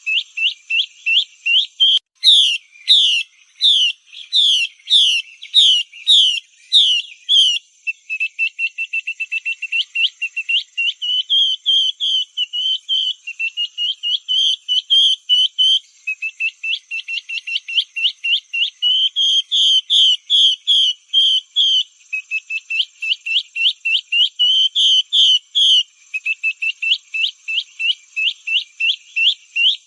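Female Chinese hwamei (melodious laughingthrush) calling: a long series of quick rising whistled notes, several a second, in runs with brief breaks, some runs faster and tighter. This is the female's lure call, recorded and played to draw in male hwamei. A faint steady high tone runs underneath.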